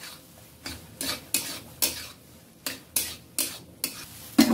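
Metal spatula scraping and knocking against a metal kadhai in about eight separate strokes, stirring boiled chickpeas and potatoes together into a curry.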